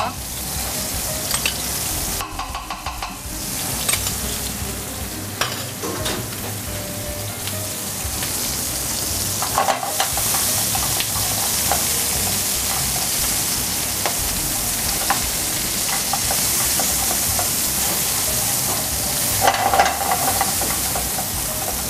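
Diced red pepper, sea cucumber and cockscomb sizzling steadily in oil in a black iron frying pan, stirred with a wooden spatula that scrapes and knocks now and then, as salmorreta paste is fried into them.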